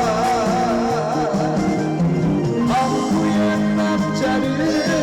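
A male trot singer and amplified backing music: he holds the last note of a line with a wide vibrato for about a second, the band track carries on alone, and he starts the next line near the end.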